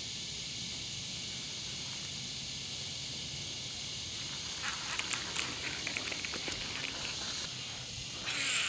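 Dusk chorus of insects, a steady high-pitched drone. From about halfway through there is a run of irregular clicks and ticks, and near the end a short rush of noise.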